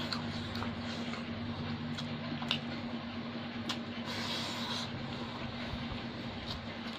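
A person eating rice by hand, with scattered soft mouth clicks and a brief rustling burst about four seconds in as a handful goes into the mouth, over a steady background hum.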